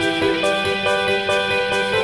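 Instrumental background music with a steady beat and a melody of held notes.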